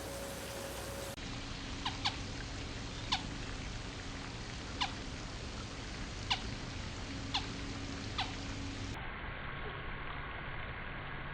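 A bird giving about seven thin, sharp calls, each sliding quickly downward in pitch, roughly a second apart over a steady background hiss.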